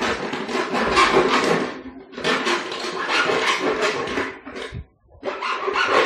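A hard plastic jar being scraped and cut with a metal tool, in three long grating strokes of a second or two each with short breaks between them.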